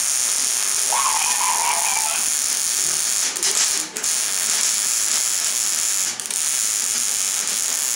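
Electric arc welder crackling and hissing steadily as a bead is laid, with the arc breaking off briefly a few times, around three to four seconds in and again near six seconds.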